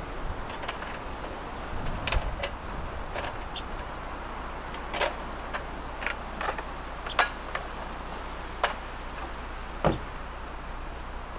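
A folding slatted camp table and other camp gear being packed away: about ten scattered wooden and metal clacks and knocks as the table is folded and handled, with a steady wind rumble underneath.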